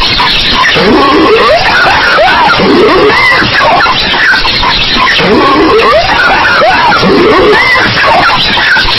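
A cartoon character's voice coughing and hacking over and over, boosted so loud that it distorts.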